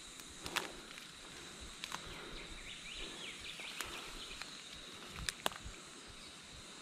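Quiet bush ambience: a steady high insect drone with a few soft chirps around the middle, and several sharp clicks of handling, two of them close together near the end.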